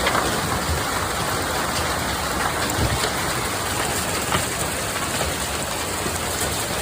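Heavy hailstorm: a dense, steady patter of large hailstones pelting down, with a low rumble underneath.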